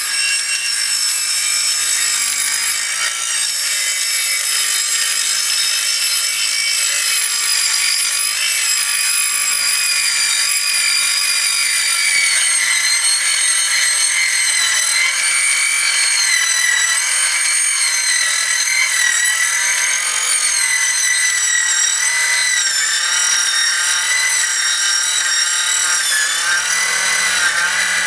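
Cordless circular saw with a fine-toothed blade cutting through a multiwall polycarbonate panel: a steady, high-pitched whine whose pitch wavers slightly as the saw is pushed along the cut.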